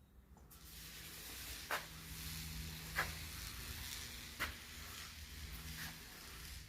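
Steady hiss that starts about half a second in, with four sharp clicks roughly every second and a half and a faint low hum beneath.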